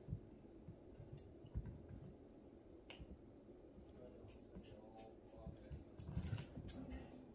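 A puppy scuffling on a mesh-fabric raised pet cot while it pounces on and mouths a rubber ball: faint scattered clicks and soft thumps of claws, paws and ball, with a louder flurry of scrabbling about six seconds in.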